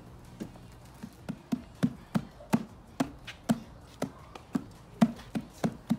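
Gallon jug of white glue glugging as it is tipped and poured into a plastic bowl: a quick, uneven run of short glugs, about three a second.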